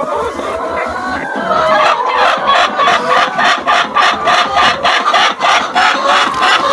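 Laying hens clucking in a poultry house, with a fast run of repeated clucks from about two seconds in, roughly three to four a second.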